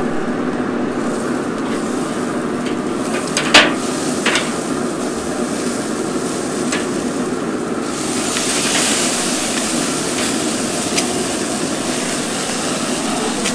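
Tomahawk steaks sizzling on the hot grate of a pellet grill with the lid open, while metal tongs flip them and clack against the grate twice, sharply, about three and a half and four seconds in. The sizzle turns louder and hissier about eight seconds in.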